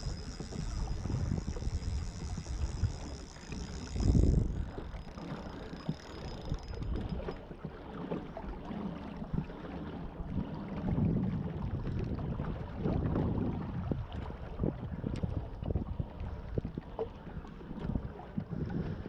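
Kayak moving on the water while being turned around, with wind buffeting the microphone, water sloshing and hull knocks, and a loud low thump about four seconds in. A faint high whine runs under it for the first six seconds or so, then stops.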